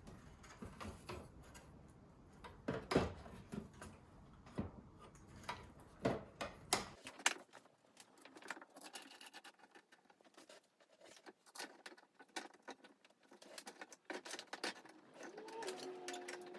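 Light scattered clicks and knocks of metal oven panels and screws being handled during reassembly.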